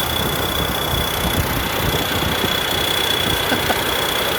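Combine harvester's diesel engine running steadily, with a steady high-pitched whine over it.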